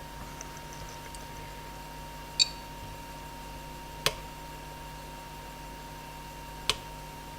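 A hook pick clicking and ticking against the pins inside an American Series 30 padlock as it is picked. There is a short, bright metallic ping a little over two seconds in, then two sharp single clicks, one about four seconds in and one near the end, over a faint steady high hum.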